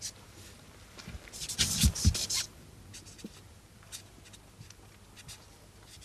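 Felt-tip marker scratching and squeaking in short strokes on a painted metal bomb casing, thickest about a second and a half to two and a half seconds in, with a few dull bumps among them.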